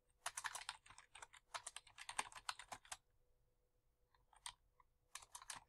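Faint keystrokes on a computer keyboard: a quick run of typing for about three seconds, a pause with a single key, then a few more keys near the end.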